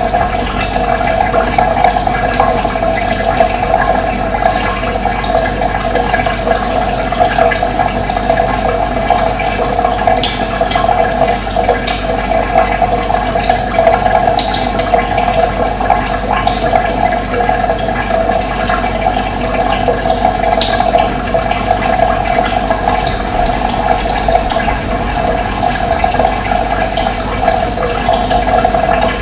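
Running water, flowing steadily with an even rushing sound.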